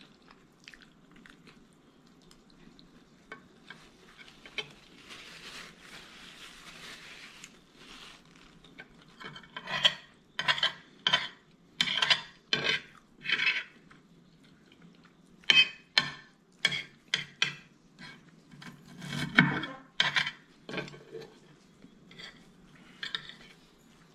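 Metal fork and spoon scraping and clinking against a ceramic plate as food is scooped up: a soft scrape early on, then a quick series of sharp scrapes and taps through the middle.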